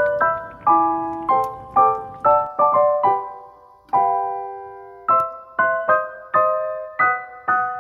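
Background music: a light piano melody, notes and chords struck about twice a second.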